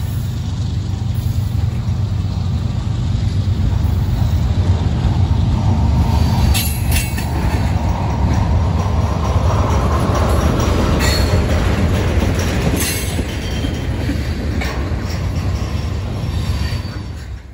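Freight train cars rolling past close by: a steady heavy rumble of steel wheels on rail. Short high-pitched metal squeals come several times in the middle.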